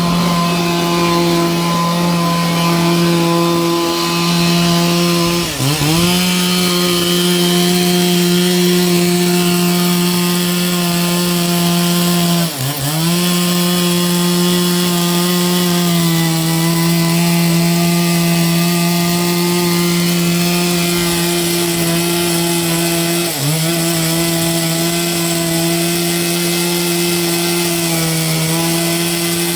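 A small engine running steadily at high speed. Its pitch sags briefly and recovers three times, about six, thirteen and twenty-three seconds in.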